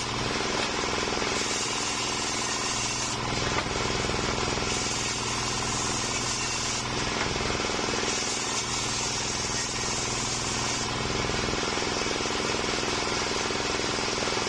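Homemade table circular saw running steadily, its large blade ripping strips of waru (sea hibiscus) wood in repeated passes of two to three seconds, each cut adding a brighter, higher hiss over the steady hum of the drive.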